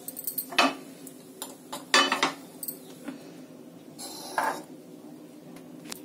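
A few sharp clicks and knocks of a frying pan and utensils being handled and set down on a gas stove's metal pan support, with a short scrape about four seconds in.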